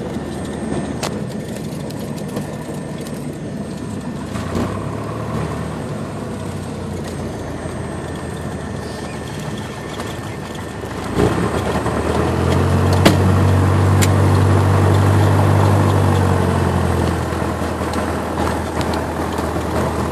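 Cessna 172's piston engine and propeller heard from inside the cabin: a steady drone that grows louder about eleven seconds in, holds, then eases a little near the end. Two short clicks come in the louder stretch.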